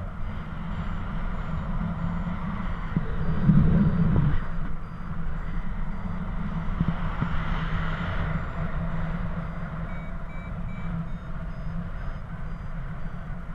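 Paragliding variometer beeping in short repeated tones, the climb tone that signals rising air, over steady wind rushing on the microphone. A louder gust of wind buffets the microphone about three and a half seconds in.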